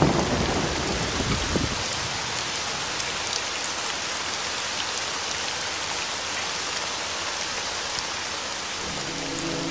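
Steady rain, an even hiss with scattered sharp drop ticks. A low rumble fades out about two seconds in, and music with sustained tones comes in near the end.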